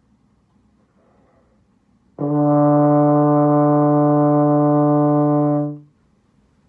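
Euphonium playing a single held concert D, fingered with valves 1 and 2. The note starts cleanly about two seconds in, holds steady for about three and a half seconds, then tapers off.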